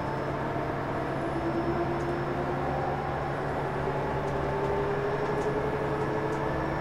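Cabin sound of a KTR8000 diesel railcar pulling away: the diesel engine drones steadily under a whine that rises slowly in pitch as the train gathers speed.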